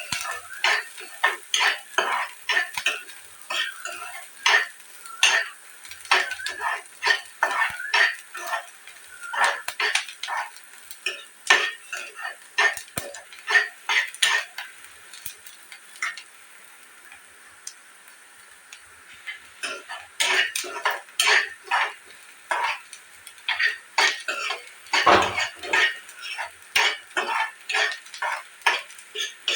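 Metal spoon stirring and scraping in a cooking pan, with many quick irregular clicks over a faint sizzle, pausing for a few seconds midway.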